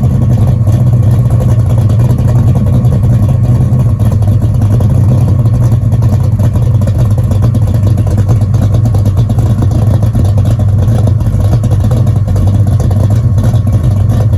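Chevrolet Chevelle's engine and exhaust running at a steady idle, a loud, low, even rumble with no revving.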